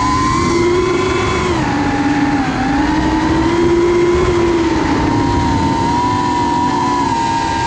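Brushless motors and propellers of a 3-inch FPV quadcopter whining, heard through the onboard GoPro, with wind rumble on its microphone. The pitch dips about two and a half seconds in, then rises and holds steady as the throttle changes.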